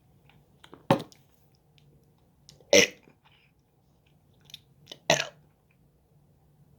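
A person burping the alphabet: three short, forced burps voiced as letters, about two seconds apart.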